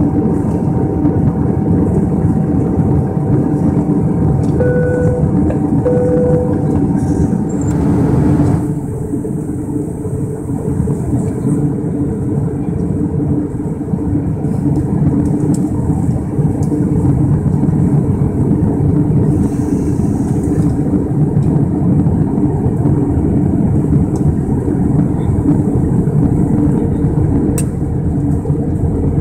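Steady cabin roar of an Airbus A320 in flight, engine and airflow noise heard from a seat over the wing. Two short beeps sound about five and six seconds in. About eight seconds in, a steady whine in the roar stops and the noise drops slightly.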